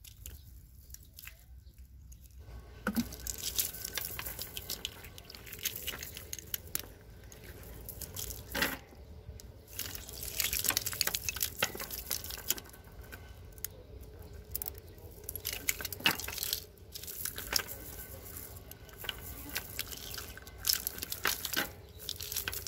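Wet nylon cast net being pulled and shaken apart by hand, rustling, with the clam and mussel shells caught in its mesh clicking and rattling against each other and the wooden boards. It starts about two and a half seconds in and comes in bursts of handling.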